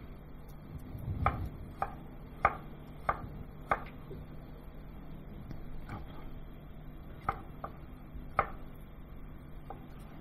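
Chef's knife chopping on a cutting board: about ten separate, unevenly spaced strokes with a pause in the middle, over a steady low hum.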